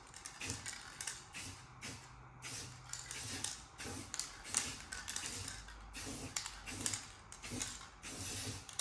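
Aerosol spray-paint can hissing in short, irregular bursts as paint is sprayed onto a steel wheel.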